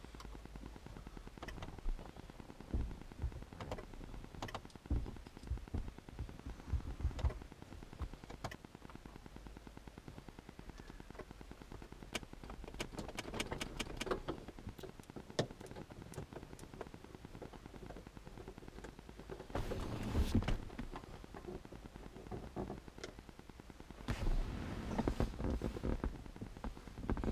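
Scattered clicks, taps and knocks of hands working on a car's plastic interior trim and light fittings, with denser bursts of rattling about 13, 20 and 25 seconds in.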